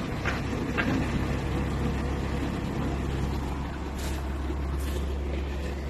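Boat's engine running steadily under way, a constant low drone, with a few brief hisses about a second in and again around four seconds in.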